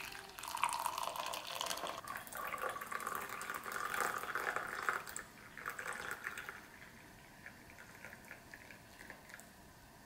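Hot coffee poured from a Hario syphon's glass lower bowl into a glass mug, a splashing liquid stream filling the mug. The stream stops about two-thirds of the way through, leaving a few faint drips.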